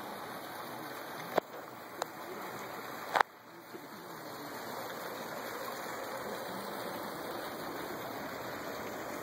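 Steady rush of running water, broken by three sharp clicks in the first few seconds, the third the loudest.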